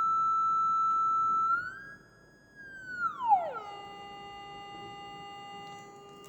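Styrofoam cup sounding a pure electronic-like beep, driven by a motor and toothpick at about 1300 hertz. About a second and a half in the tone rises a little and turns quieter, then around three seconds in glides quickly down to a much lower steady tone as the frequency is changed.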